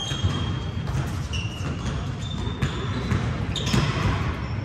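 Pickup basketball on a hardwood gym floor: a ball bouncing with a few sharp knocks, and several brief high squeaks of sneakers on the court, in a large echoing hall.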